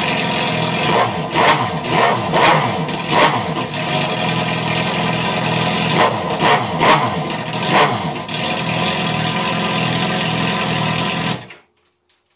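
Suzuki GSX-R1000 K8 inline-four running through a freshly fitted Jardine GP1 aftermarket exhaust: loud steady idle broken by two runs of short, sharp throttle blips, then the engine is switched off and cuts out about a second before the end.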